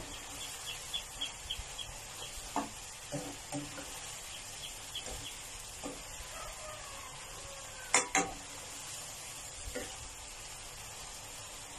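Chicken breast pieces simmering and bubbling in water in a frying pan while a spatula stirs and scrapes them, with a few knocks of the spatula against the pan, the loudest two close together about eight seconds in.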